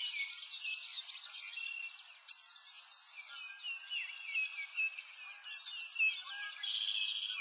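Several songbirds chirping and singing at once, a dense run of quick high notes that thins out briefly about two seconds in.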